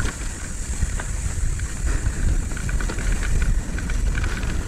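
Wind buffeting the microphone over a low, uneven rumble, with a steady high hiss and a few faint clicks.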